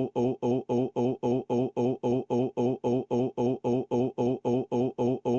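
A computer text-to-speech voice rapidly repeating the same short word over and over, about four times a second, each repeat identical in pitch and length.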